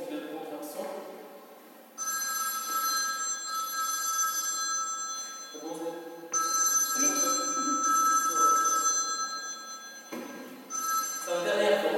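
A phone's electronic ringtone ringing in long rings of about three and a half seconds with short breaks between them, starting about two seconds in, with people's voices underneath.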